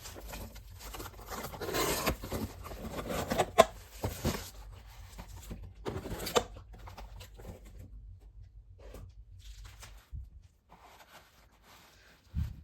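Kinder Joy egg's foil wrapper being torn open and crinkled by hand, with a few sharp snaps and clicks in the first few seconds, then fainter handling noises.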